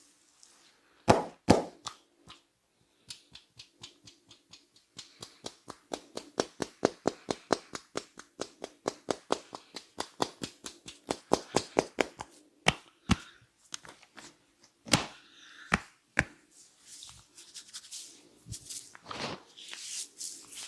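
Hands striking rapidly in a barber's percussive head massage: a long run of sharp slaps at about five a second, with a few louder single slaps before and after.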